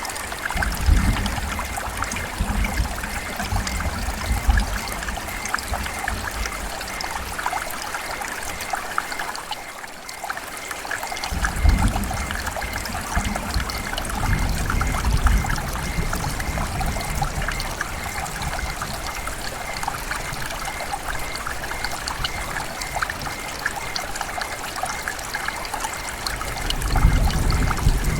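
Heavy rain falling steadily, a dense hiss full of individual drop splashes. Low rolls of distant thunder come three times: right at the start, about twelve seconds in, and again near the end.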